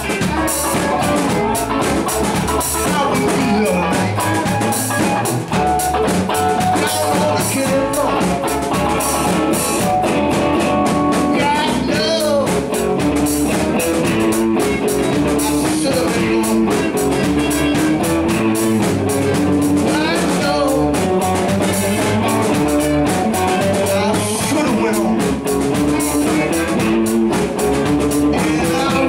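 Live blues band playing loud and steady: electric guitars with bending lead notes over a drum kit beat.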